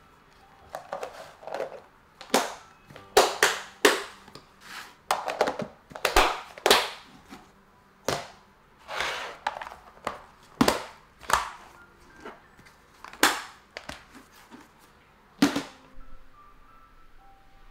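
Clip-lock lids being snapped onto plastic food storage boxes: an irregular run of sharp plastic clicks and snaps as the locking flaps are pressed down, with duller knocks as the boxes are handled and set down.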